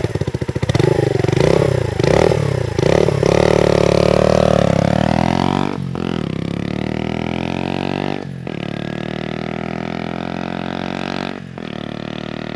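Herald Maverick 125's single-cylinder four-stroke engine blipped a few times, then pulling away and accelerating up through the gears. Brief dips about six, eight and eleven seconds in mark the upshifts, and the engine note grows fainter as the bike rides off.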